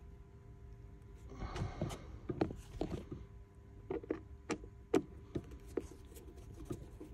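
Scattered clicks and knocks of plastic interior trim and tools being handled, with a short rustle about a second and a half in.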